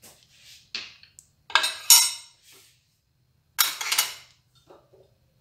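Metal kitchen utensils and dishes clinking and knocking together in two short clusters about two seconds apart, each a few ringing strikes, after a couple of lighter taps.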